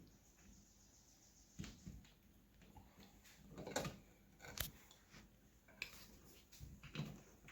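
Scattered light clicks and knocks of small parts and tools being handled, about six irregular taps over faint room tone, the loudest a little before the middle.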